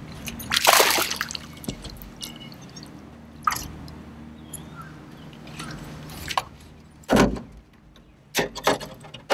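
Knocks and clatters against an electric jon boat, the loudest about a second in and about seven seconds in, over a steady low hum that fades out about seven seconds in.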